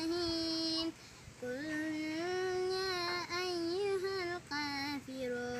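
A nine-year-old boy reciting the Quran in a chanted, melodic style, holding long drawn-out notes, with a short pause about a second in.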